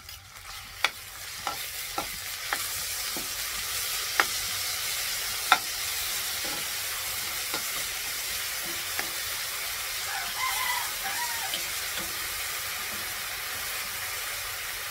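Shrimp paste and onions sizzling in a hot frying pan as a metal ladle stirs them, with sharp clicks and taps of the ladle against the pan. The sizzle builds over the first second or so and then holds steady.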